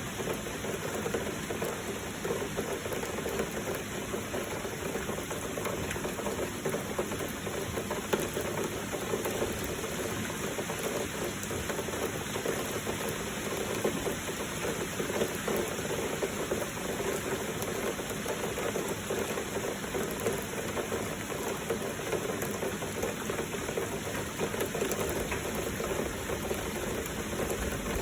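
Heavy rain with flowing water, a steady, unbroken rushing hiss with no let-up.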